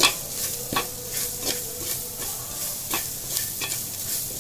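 Spatula scraping and knocking against a metal pan as vegetables are stir-fried, with a sharp stroke about once a second over a steady sizzle of frying.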